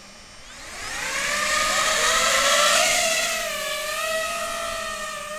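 DJI FPV drone taking off: its four motors and propellers spin up into a rising whine, then settle into a steady pitch as it hovers and flies off, growing slightly fainter.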